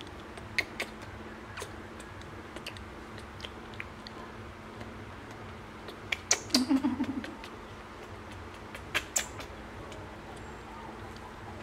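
Baby macaque giving a short, stuttering whimper about six seconds in, amid scattered soft clicks and rustles of handling.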